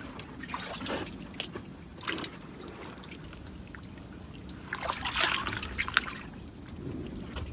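Water trickling and dripping in a drained ditch, with scattered small splashes and a brief louder bout of splashing about five seconds in, as hands grope through the muddy water for a catfish.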